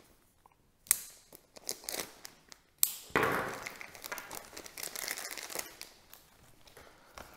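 Small clear plastic parts bag crinkling and rustling as it is opened and the propeller mounting bases are taken out by hand, with two sharp clicks about one and three seconds in.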